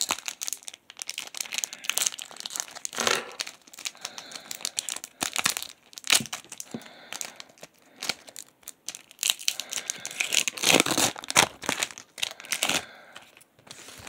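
Foil wrapper of a Pokémon Sun and Moon booster pack crinkling and tearing open in irregular rustling bursts.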